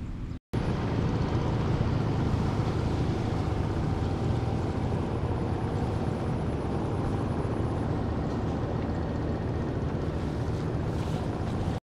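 A steady, low engine drone that starts abruptly about half a second in and cuts off suddenly just before the end.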